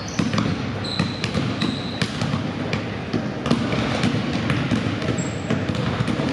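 Basketballs bouncing on a gym floor, many irregular thuds, with short high sneaker squeaks now and then over a steady background murmur in the gym.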